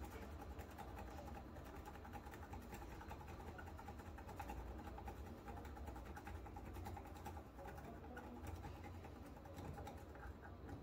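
Faint, rapid scratching of a hand tool scraped across a Socket 7 motherboard's circuit board, scraping off the coating to expose damaged copper traces, over a steady low hum.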